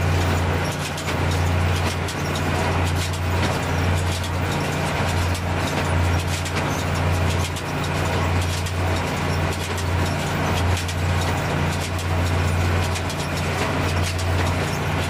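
A tractor's diesel engine running steadily at constant speed.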